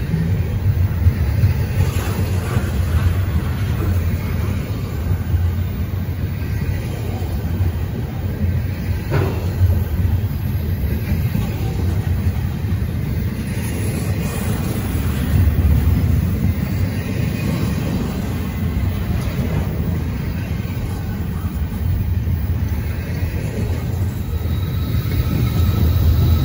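Freight train rolling past with a steady low rumble that swells and eases.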